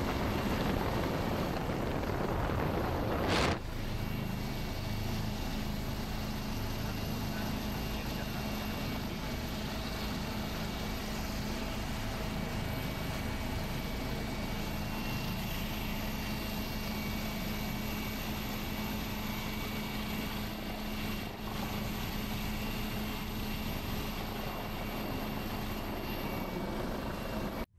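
Helicopter in flight heard from inside the cabin: a steady rotor and engine drone with a constant hum. About three and a half seconds in it changes suddenly and drops a little in level, then runs evenly.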